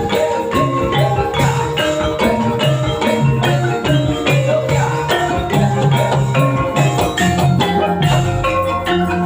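Javanese gamelan music accompanying a kuda lumping dance: metal-keyed percussion struck in a fast, steady rhythm of ringing pitched notes.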